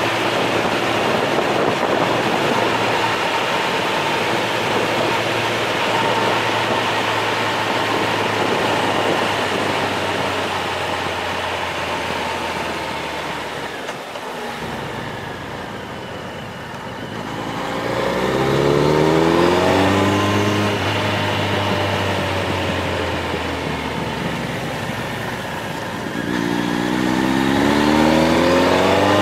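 Vehicle engine running under a steady rush of road and wind noise. It eases off and quietens about halfway through, then accelerates with a rising pitch, and again near the end.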